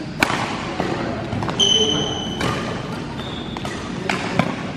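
Badminton rally: several sharp racket hits on the shuttlecock and footfalls on the court, with a sneaker squeaking on the sports hall floor about one and a half seconds in and a shorter squeak a little later.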